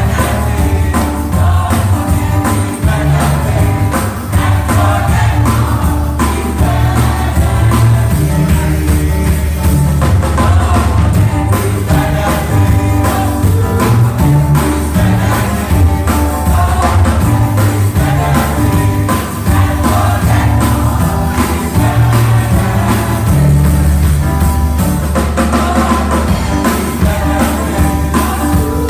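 Gospel choir singing into microphones over amplified accompaniment with a heavy bass line and a steady beat.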